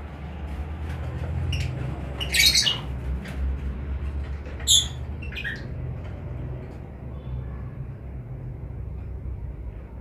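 A colony of lovebirds giving short, high-pitched squawking calls: a cluster about two and a half seconds in and a couple more near the five-second mark, over a steady low rumble.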